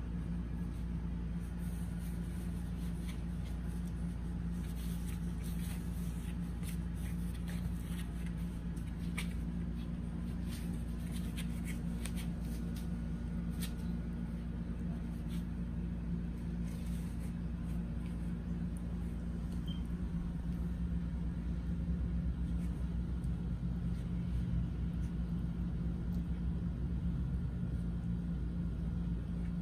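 A steady low hum, with light scuffling and clicking as two puppies wrestle on a foam play mat, the clicks mostly in the first half.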